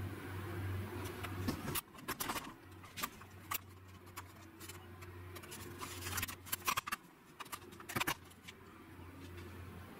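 Scattered clicks and short light metallic rattles from things being handled on a workbench, loudest in a few clusters, over a low steady hum.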